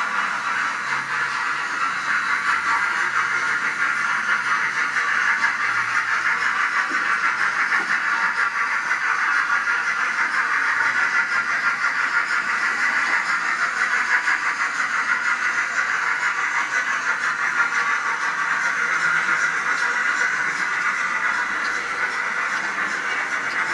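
HO scale model steam locomotive running on the layout, giving a steady, even hiss at a constant level.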